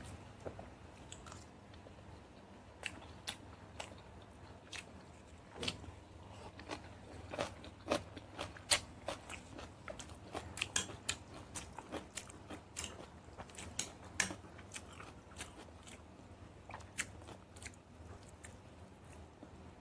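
Close-up eating sounds: a person chewing and biting food, with irregular crisp crunches and wet mouth clicks, busiest around the middle.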